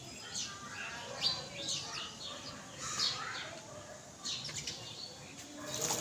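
Birds chirping over and over in quick short calls, and just before the end a splash of water as a pigeon flaps its wings in a shallow bathing dish.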